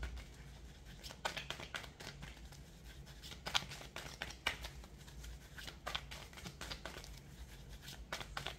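A deck of oracle cards being shuffled and handled by hand: soft, irregular flicks and slaps of card stock, over a faint steady low hum.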